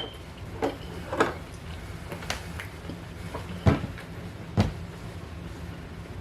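Eating sounds from a lamb chop meal: five or so sharp, separate clicks and knocks spread across a few seconds, over a steady low hum.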